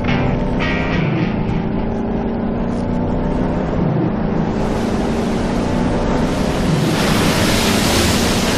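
Cartoon soundtrack: background music with held tones, joined about halfway through by a swelling rushing noise like wind or surf that is loudest near the end.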